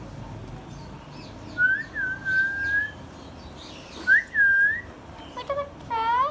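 Indian ringneck parrot whistling: two long, clear, level whistles, the second with a quick upward flick at its start, then a few short rising calls near the end.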